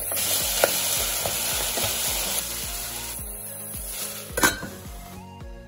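Spiced boneless chicken pieces sizzling in a nonstick frying pan while a spatula stirs them, with a scraping stroke about every half second over the first few seconds. A single sharp knock comes about four and a half seconds in, and background music comes in just before the end.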